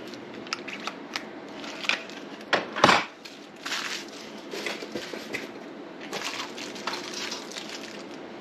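Monitor-arm parts and plastic packaging being handled: crinkling rustles and scattered small clicks, with a louder rustle about three seconds in.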